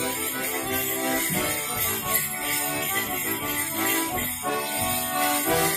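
Concertina playing a lively morris dance tune, with the dancers' leg bells jingling over it.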